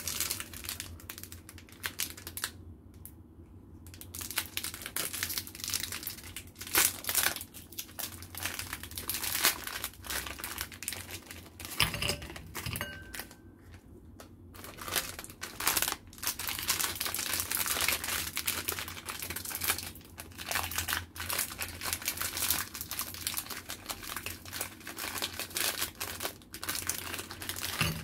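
Crinkly plastic-film wrappers of individual Oreo cookie packs being handled and torn open by hand, crinkling in dense bursts. It is sparser for the first few seconds.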